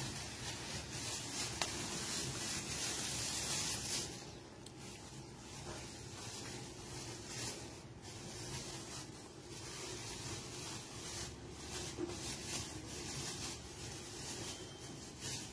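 Hands rubbing and squeezing grated coconut in a plastic basin: a soft, steady rustling, louder and hissier for the first four seconds.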